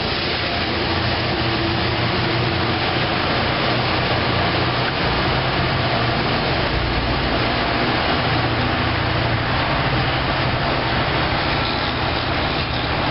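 MBTA commuter train's diesel locomotive passing and pulling away, its engine running under a steady noise of wheels on the rails.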